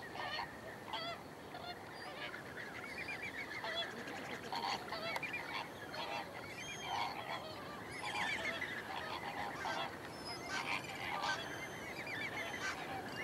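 A flock of flamingos calling: many short, goose-like honks and chattering calls overlapping all through.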